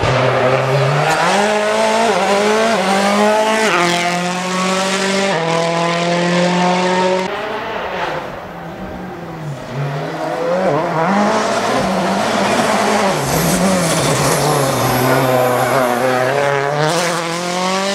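Rally cars' turbocharged four-cylinder engines revving hard. In the first seven seconds one accelerates, its pitch climbing and dropping back at each upshift. After a sudden break a Citroën C4 WRC is heard on loose gravel, its engine wavering as it slides through a corner and rising again as it powers away.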